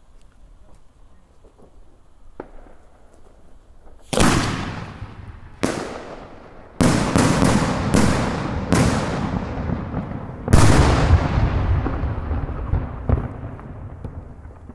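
A 4-inch Italian multi-break cylinder shell (a 'scala', whose breaks go off in succession) bursting overhead. After a few quiet seconds come eight or so loud bangs. A group of them fall in quick succession, and the last and loudest comes about ten seconds in. Each bang rings out and fades slowly.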